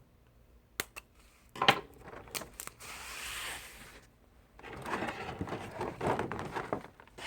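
Handling of a cardboard trading-card collection box and its plastic-wrapped contents: a few sharp taps and knocks, the loudest a little under two seconds in, then a short sliding scrape, then a couple of seconds of crinkling rustle of packaging.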